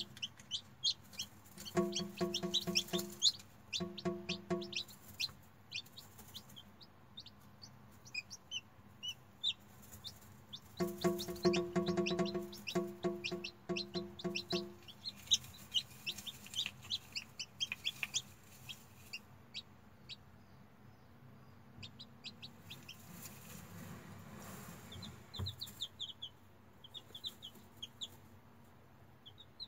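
Newly hatched chicks peeping: rapid, short, high chirps that keep coming throughout. In several stretches a lower, pulsing clucking sounds underneath, loudest from about 11 to 15 seconds in.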